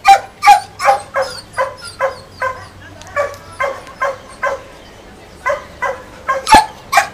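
A dog barking in a rapid run of short, high yapping barks, about two to three a second, with a break of about a second a little past the middle before the barking resumes.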